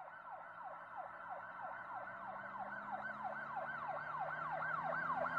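Emergency-vehicle siren in a fast yelp, its pitch falling in repeated sweeps about three times a second and growing steadily louder.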